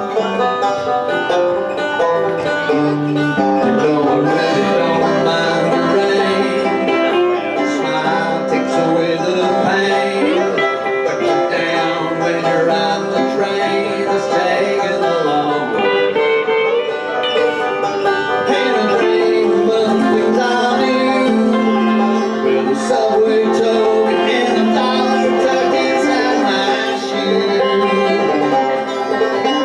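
Five-string banjo and electric guitar playing a bluegrass tune together: quick picked banjo rolls over amplified guitar.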